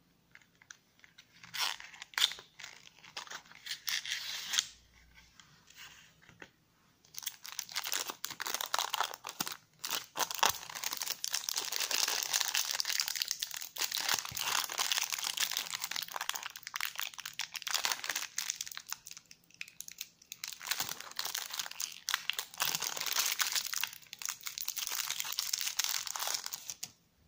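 A cardboard box opened by hand with a short spell of scraping and clicking, then clear plastic film around a phone battery crinkling and crackling steadily as it is peeled off. The crinkling stops suddenly near the end.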